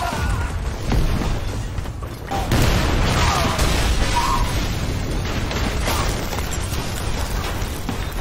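Film explosion sound effects: booming blasts with a deep rumble, a fresh blast surging in about two and a half seconds in.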